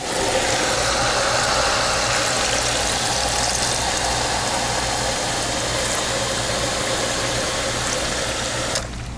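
Fountain soda dispenser pouring Dr Pepper into a foam cup of ice: a steady, fizzing rush of carbonated soda that starts abruptly and cuts off abruptly near the end.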